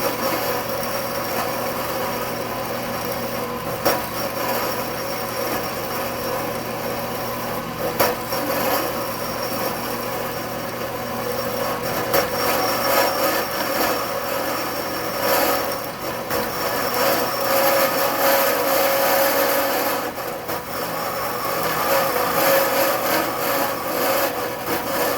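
Horizontal metal-cutting bandsaw running, its oiled blade cutting through metal stock with a steady scraping rasp over the motor's hum, with an occasional tick.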